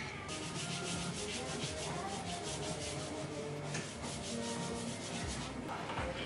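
Quick, rhythmic rubbing strokes, about seven a second, from hands pressing and smoothing pastry dough into a metal springform pan. The strokes stop about four seconds in.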